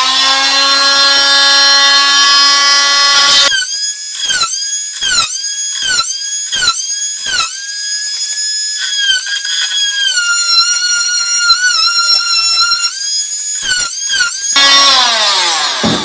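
Corded WORX oscillating multi-tool running while its blade cuts a shallow hinge recess into a softwood door lining. Its whine jumps higher a few seconds in and dips briefly again and again while cutting, then holds steady, drops lower and winds down at the end.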